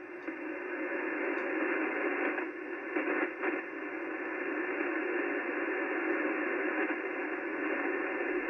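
Steady hiss of 80-metre band noise from a ham radio receiver in single-sideband mode, heard through a narrow voice passband in the gap between stations' transmissions. The hiss swells during the first second, then holds level.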